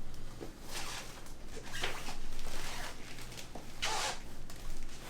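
Rustling and shuffling of movement: a few short swishes and scrapes, like clothing or a body shifting on a padded surface.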